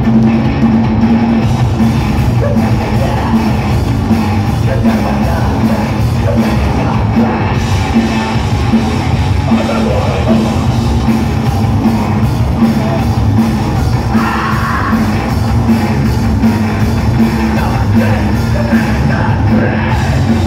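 Hardcore punk band playing live and loud: drums, guitar and yelled vocals, continuous with no break.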